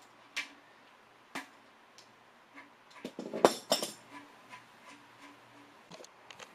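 Hand tools and metal engine parts clinking: a few separate sharp clinks, then a quick cluster of clinks and knocks about three seconds in.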